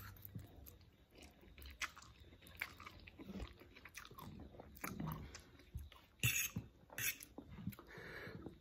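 A person eating instant noodles: soft, irregular chewing and slurping, with small wet mouth clicks and two louder sharp sounds about six and seven seconds in.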